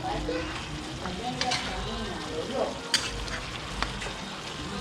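Chicken adobo sizzling in a pan as it cooks down, with a few sharp clicks, about three, spread through the sizzle.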